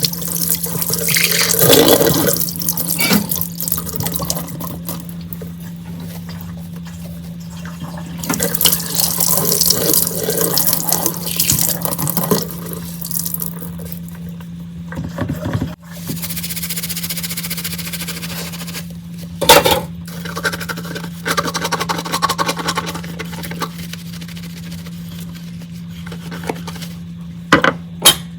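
Kitchen tap water running and splashing in the sink while dishes are washed, coming and going in spells, with a few sharp knocks of dishes about two-thirds of the way in and near the end.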